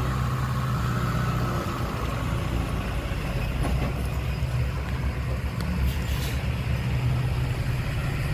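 Heavy diesel earthmoving machine engine running steadily with an even hum.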